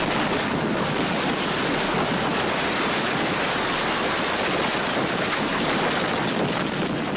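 Violent EF4 tornado wind and debris blasting the microphone: a steady, loud rushing noise that eases off slightly near the end.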